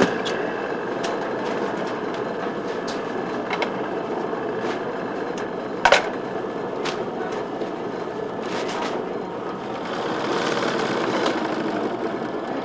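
Industrial sewing machine running steadily as it stitches a brand label onto a garment, a continuous mechanical whirr, with one sharp click about six seconds in.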